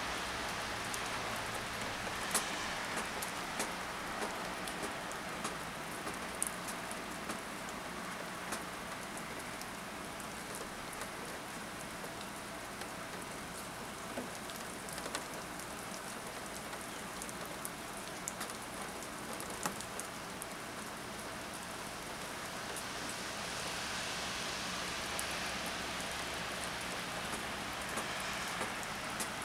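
Wet snow falling and dripping on leaves and branches: a steady hiss with scattered sharp taps of drops.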